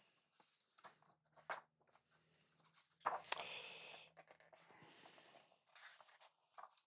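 Pages of an artbook being turned and handled: a couple of light taps, then a paper rustle about three seconds in that fades over a second, and faint rustling after.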